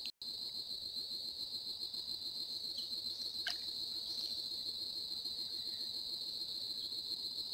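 Steady, high-pitched insect chorus with an unbroken shrill drone. The audio drops out for a split second just after the start.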